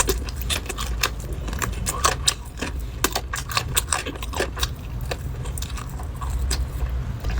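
Close-miked chewing and biting: a run of irregular wet clicks and crunches.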